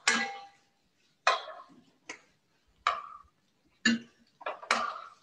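A metal spoon clinking against a cooking pot while curry is stirred: about six sharp clinks, each ringing briefly, roughly a second apart.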